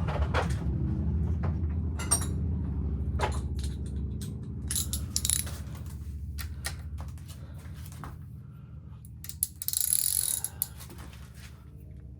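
Metal hand tools and sockets clinking and clattering, with a socket ratchet clicking, as tools are picked out. A low rumble underneath fades away over the first half, and a short hissing rustle comes near the end.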